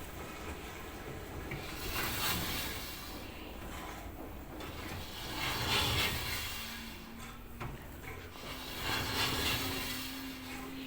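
Bosch tumble dryer drum turning with a rubbing, scraping noise that swells and fades every three to four seconds as it goes round. This is the drum noise the machine is faulty with. A steady low hum joins about two-thirds of the way through.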